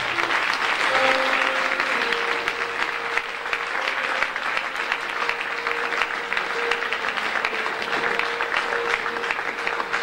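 Crowd applauding steadily, with faint music underneath.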